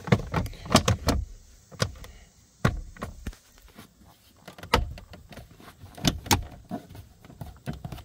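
Sharp plastic clicks and knocks from the truck's lower dash trim panel being handled and pressed into its clips. A quick cluster comes in the first second, then single knocks every second or so, with louder ones around the middle and later.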